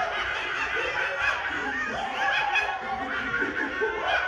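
A crowd of young children laughing and chattering all at once, many high voices overlapping without a break.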